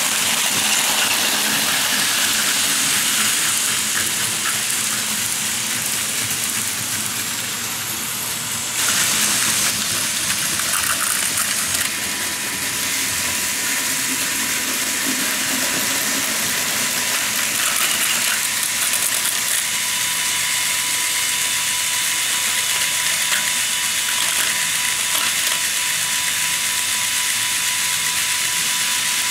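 Battery-powered Plarail Advance toy trains running on plastic track: a steady whirring of their motors and gearboxes with the wheels rattling along the rails. A steady thin whine joins about halfway through.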